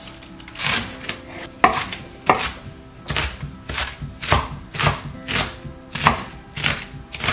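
Chef's knife chopping romaine lettuce on a wooden cutting board: about a dozen crisp cuts, each ending in a knock on the board, a little under two a second.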